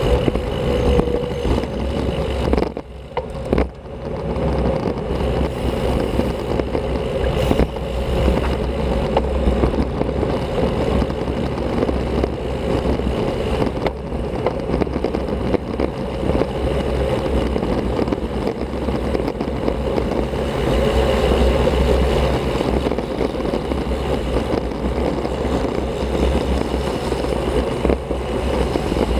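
Wind rushing over the microphone of an action camera on a moving road bike, a steady low rumble with a brief lull about three seconds in.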